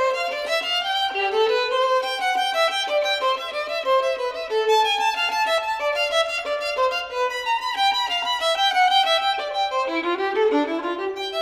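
Background music: a quick melody of many changing notes, with no bass.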